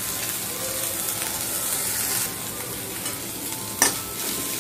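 Onions, green peas and fried peanuts sizzling in oil in a black kadhai as a metal spoon stirs them, with one sharp knock of the spoon on the pan near the end.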